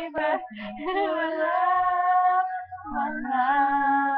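Two young girls singing a pop song, holding two long notes with a short break between them.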